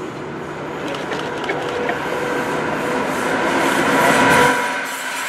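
Red diesel shunting locomotive hauling a train of freight wagons passes by. Its low engine rumble and the rolling noise build to a peak about four seconds in, then the engine rumble drops away as the wagons roll on with a steady high ringing from the wheels.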